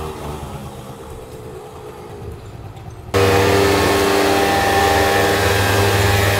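Motor vehicle engine running: a fainter engine for about three seconds, then an abrupt jump to a loud, steady engine running close by.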